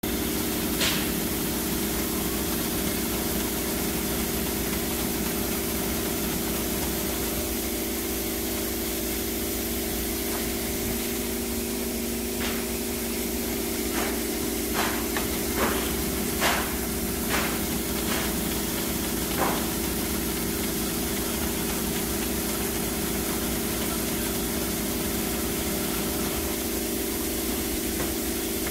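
Veneer stitching machine running with a steady hum and hiss. About halfway through come a handful of short, sharp clicks and taps as the veneer sheets are handled on the machine bed.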